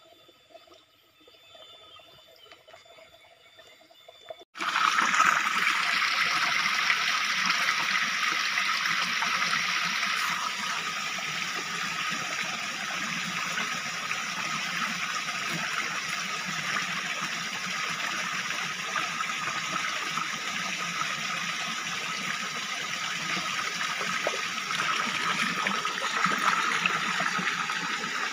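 Stream water running and splashing over rocks, a steady rush that cuts in suddenly about four and a half seconds in; before that only a faint quiet background.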